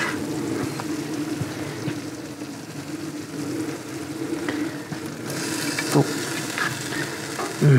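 Coconut chicken curry simmering in a wok over a gas grill, a steady bubbling hiss, with a few light clicks of the ladle as the curry is spooned onto a plate.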